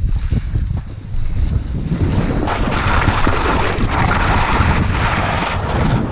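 Wind buffeting an action camera's microphone in heavy, uneven gusts, with the hiss of skis sliding over hard, crusted snow.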